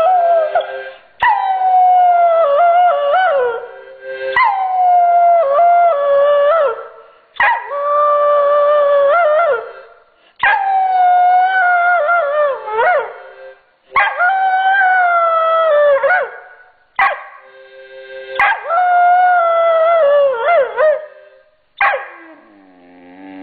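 Giant Schnauzer puppy howling: a run of about six long howls, each two to three seconds, wavering and dropping in pitch at the end, with short breaks between them. Near the end comes a lower, falling whine.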